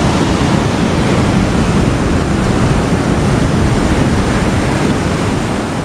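Steady rushing of waves and wind, with wind buffeting the microphone.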